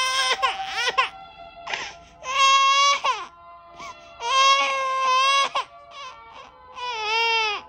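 Toddler crying in several long, pitched cries, each about a second, with short breaths between, over a lullaby playing softly. She is crying at the lullaby, which her parent takes to be because the song is sad.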